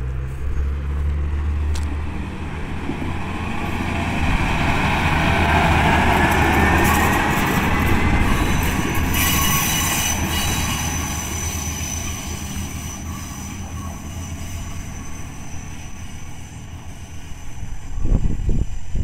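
A one-car diesel railcar passes close by and rolls away: a low engine rumble and track noise, loudest about midway, with a rising whine as it comes past. After it passes, a thin steady high wheel squeal follows as it rounds the curve, and a few low bumps come near the end.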